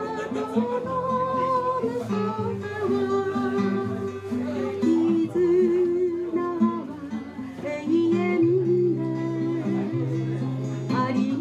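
A woman singing to her own acoustic guitar accompaniment, holding long, slightly wavering notes over plucked chords.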